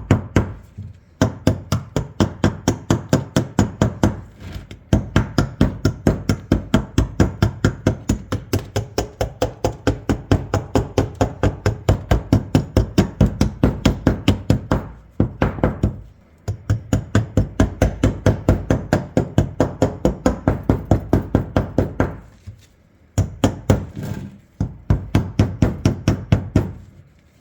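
Rapid, even knocking of a metal tool on the rusted barrels of an old double-barrel shotgun, about four strikes a second, in long runs with a few brief pauses: gunk and rust being chipped out from between the barrels.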